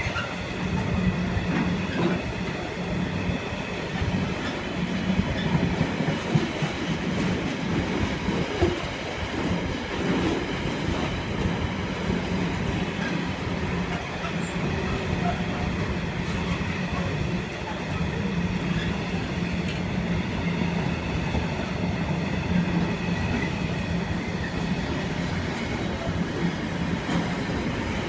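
Container flat wagons of a freight train rolling past at steady speed: continuous wheel rumble with a clickety-clack over the rail joints and a steady low hum underneath.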